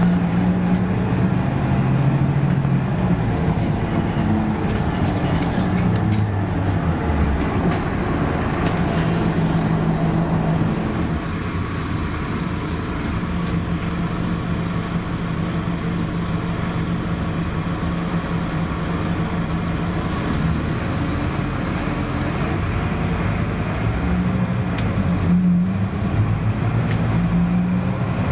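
On board a Scania K280UB city bus under way: its rear-mounted five-cylinder diesel engine runs over road noise heard inside the cabin. The engine note shifts in pitch during the first few seconds and holds steady through the middle, then picks up again near the end.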